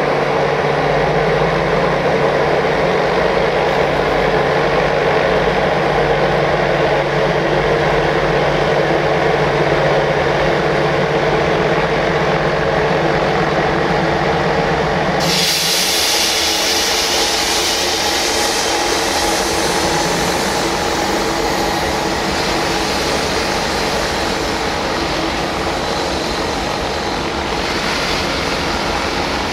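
Freight train of log-laden open wagons rolling past behind an LE5100 electric locomotive: a steady electric hum at first, then about halfway through a sudden high hiss with faint wheel squeal as the wagons roll by.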